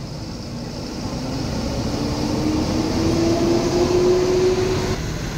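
Diesel engine of a large intercity coach bus pulling away, its note rising slowly and growing louder as the bus accelerates.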